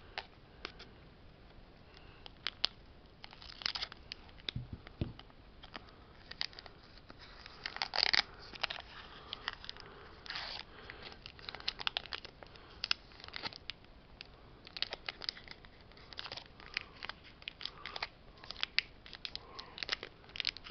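Foil wrapper of a Pokémon Sun & Moon booster pack crinkling and tearing in the hands as it is opened and the cards are drawn out: irregular short crackles, with louder bursts about 8 and 10 seconds in.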